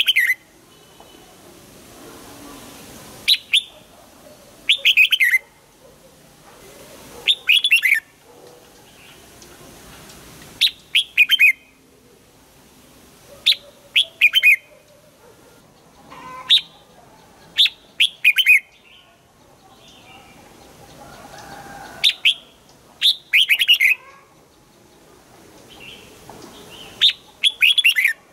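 Red-whiskered bulbul singing: short, loud phrases of quick falling notes, repeated every few seconds.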